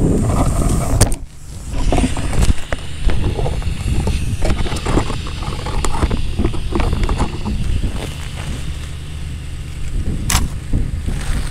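Wind buffeting the microphone in a steady low rumble, with scattered knocks and rustles from gloved hands handling the wooden tip-up and the line at the ice hole, and a sharp click about ten seconds in.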